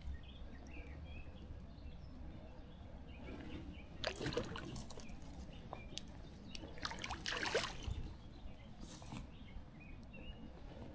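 Water splashing and sloshing in two short bursts, about four seconds in and again about seven seconds in, over a low steady rumble, with a few faint bird chirps.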